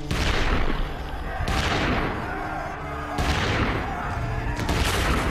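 Four volleys of massed musket fire about a second and a half apart, each a sudden crash that dies away, with background music underneath.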